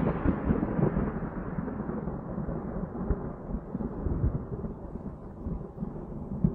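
A low rumble slowly dying away: a dramatic sound effect laid under a title card.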